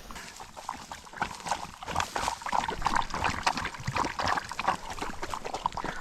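Water trickling and splashing as a bird dog is given a drink on a hot day.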